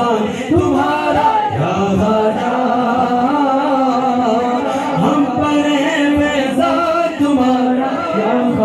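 A man singing a devotional Urdu naat unaccompanied into a handheld microphone, in long held, ornamented notes.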